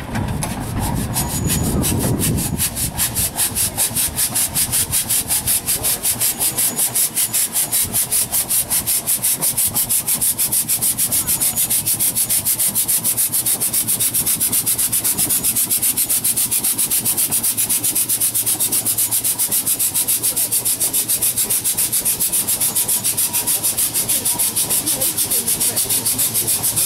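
Steam road engine working, its exhaust beating in an even, rapid rhythm of hissing chuffs, several a second and unbroken. A low rumble is heard in the first couple of seconds.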